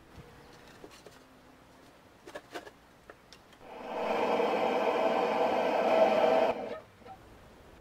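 A few light knocks, then a small electric motor running steadily for about three seconds before cutting off abruptly.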